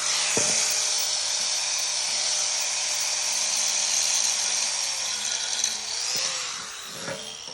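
High-speed power tool whirring steadily as it scours metal, cleaning the exhaust pipe ahead of the repair; it eases off near the end.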